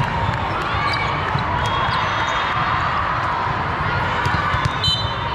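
Busy hall of several volleyball courts: a steady crowd murmur of voices with frequent sharp slaps of volleyballs bouncing and being hit.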